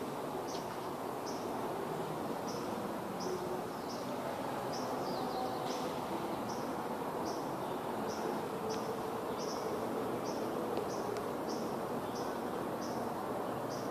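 A short, high chirp repeated at an even pace, about three every two seconds, over a steady background hum.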